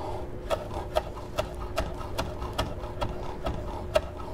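Chef's knife chopping green onions on a wooden cutting board: an even run of knocks, about two or three chops a second. A steady low hum runs underneath.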